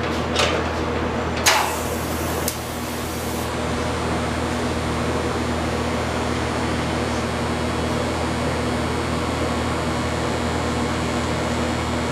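TIG welder at work on steel, giving a steady hiss and hum. There are a few sharp clicks in the first second and a half, and a brief harsh high-pitched hiss from about one and a half to three and a half seconds in as the arc is struck and settles.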